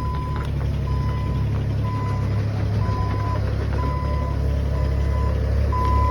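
Excavator's travel alarm beeping at one pitch about once a second over the steady low running of its engine, which grows slightly louder near the end.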